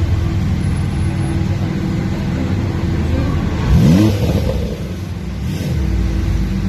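Ferrari supercar engines idling in a slow-moving line, a steady low rumble. About four seconds in, one engine is blipped in a quick rising rev, the loudest moment.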